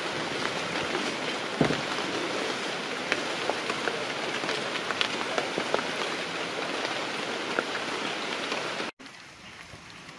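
Rain falling steadily, with many sharp drop ticks against a steady hiss; near the end it cuts off abruptly to a quieter hiss.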